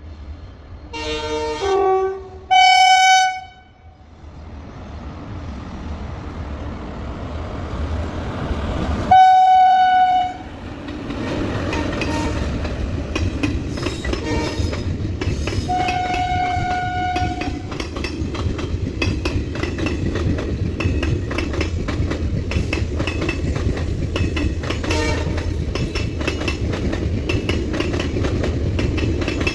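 Train horn sounds four times: a short wavering call that steps in pitch about a second in, then long steady blasts at about three and nine seconds, and a quieter one at about sixteen seconds. Between the blasts the rumble of the approaching train grows. From about eleven seconds the express runs past with a steady low rumble and wheels clattering rapidly over the rail joints.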